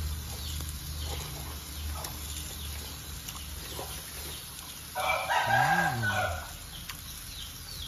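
One loud animal call, about a second and a half long, around five seconds in, rising and then falling in pitch, over a steady low hum.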